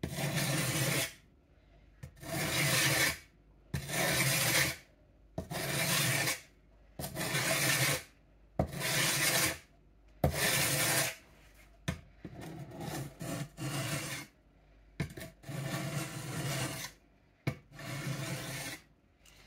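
Billhook knife blade pushed across a 600-grit sharpening stone in repeated strokes: about seven long, even strokes in the first eleven seconds, then shorter, choppier strokes.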